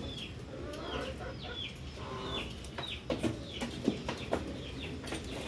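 Chickens clucking: a string of short, high calls, each falling in pitch, repeated about every half second.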